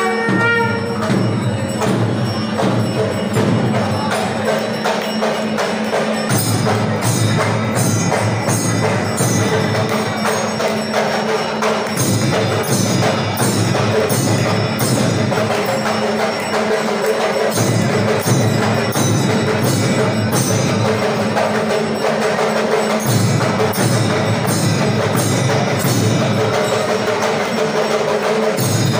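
Temple drums and ringing bells playing together in a loud, continuous rhythm, with sharp metallic strokes at a steady beat from about six seconds in.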